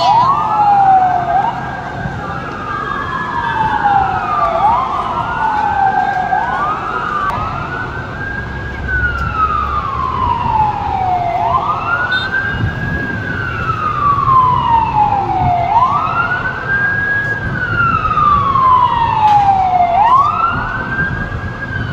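Fire engine sirens wailing, each cycle a quick rise then a slower fall in pitch, repeating about every four seconds; in the first several seconds two sirens overlap out of step. A low rumble of street traffic runs beneath.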